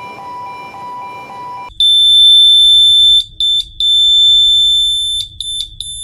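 A ship's engine-room deadman alarm sounding. It is a loud, shrill, steady tone that starts about a second and a half in, breaks off briefly a few times and ends in a stutter of short beeps. It signals that the engine-room watchkeeper has not reset the deadman timer and may be in danger. Before it starts, a quieter steady lower tone is heard.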